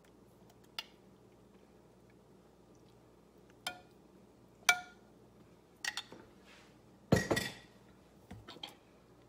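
Metal spoon clinking against a glass measuring cup and a ceramic baking dish while a thick sour cream sauce is spooned out, a handful of sharp, separate clinks. About seven seconds in comes a louder, longer knock as the cup and spoon are set down, followed by a few light clicks.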